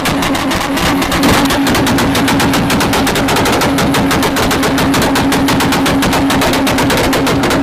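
Exhaust of a Mk4 Toyota Supra firing a rapid machine-gun string of loud pops and bangs, about nine or ten a second, while the engine holds one steady pitch on the rev limiter.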